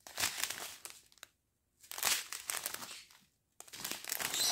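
Small clear plastic zip-lock bags of round diamond-painting drills crinkling as they are handled, in three bursts with short pauses between.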